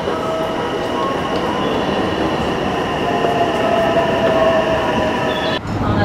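Train noise at a station: a steady rush with thin squealing tones from the wheels, one of them rising slightly in the middle. Near the end it cuts abruptly to the lower rumble of a moving train carriage.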